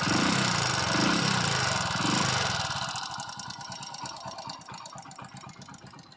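Hero Passion Pro's single-cylinder four-stroke engine revved a few times, then dropping back toward idle and getting quieter, with a fast, even ticking. The tick comes from the cylinder head: valve rocker arm (tappet) noise, which the mechanic puts down to a rocker adjustment that has worked loose.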